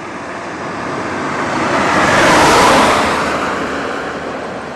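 A vehicle passing by: a rushing noise that builds to a peak about halfway through and then fades.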